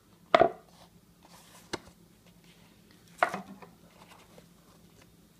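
Hands handling a cardboard trading-card box and the cards inside it: a sharp knock-and-scrape about half a second in, a small click, and another scrape about three seconds in, with light rustling between.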